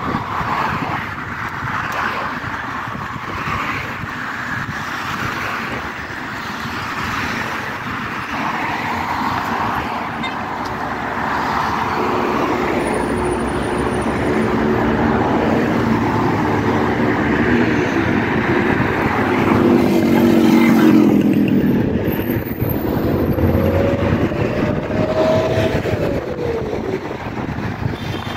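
Street traffic: cars driving past close by, with an engine hum that swells through the middle and peaks a little over two thirds of the way in. Near the end a whine rises and then falls.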